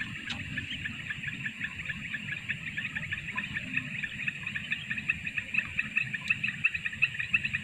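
Dusk chorus of frogs in flooded rice paddies: many rapid, repeated chirping calls overlapping in a steady stream, with a thin constant high-pitched whine above them.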